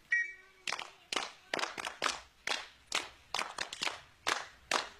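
Schoolchildren's sharp hand claps in a steady rhythm, about two a second, during a group drill exercise.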